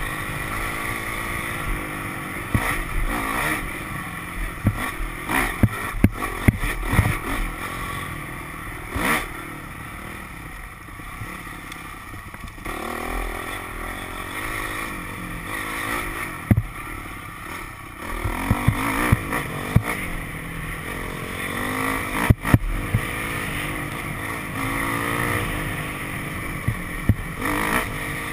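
Dirt bike engine running along a trail, revving up and falling back with the throttle, with sharp knocks and rattles scattered through.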